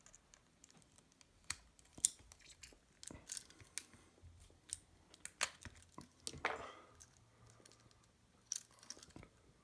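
Irregular small clicks, creaks and scrapes of a plastic retractable keyring being handled and pried apart, with one longer scrape about six and a half seconds in.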